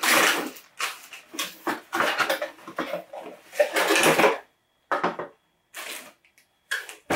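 Packaging being handled: plastic bags of parts and cardboard box inserts rustling and crinkling in uneven spells, with short quiet gaps about halfway through and near the end.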